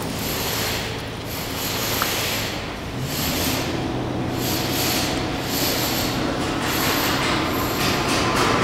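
A train running on the station tracks: a steady rumble of wheels on rail with a low hum underneath, swelling and easing roughly once a second.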